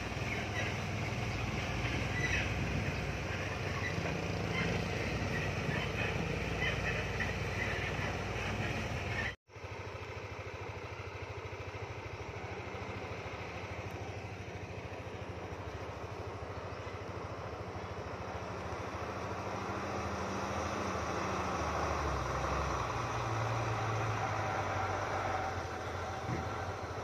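Heavy truck's diesel engine running at low speed over a rough road, with rattling. The sound cuts off abruptly about nine seconds in, then the engine of a Mitsubishi self-loader truck loaded with an excavator is heard approaching, growing louder toward the end.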